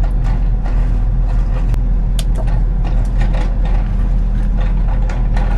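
Excavator's diesel engine running steadily under load, with many short knocks and scrapes scattered through it from the bucket working on concrete.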